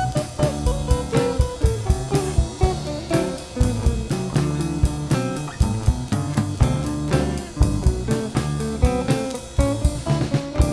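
Background music: a guitar playing over a drum kit keeping a steady beat.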